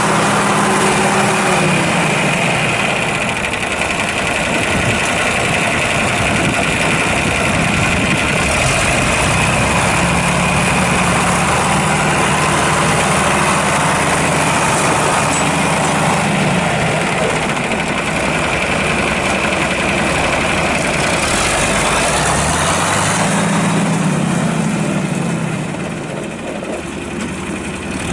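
1969 John Deere 4020's six-cylinder diesel engine running, its engine speed rising and falling several times as the tractor is worked. A steady high whine rides over it for most of the time and stops about three-quarters of the way through, and the engine gets quieter near the end.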